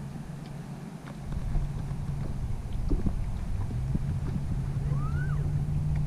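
Wind buffeting the microphone over open water, with a steady low hum that drops away about a second in and comes back about four seconds in. A short rising-then-falling chirp sounds about five seconds in.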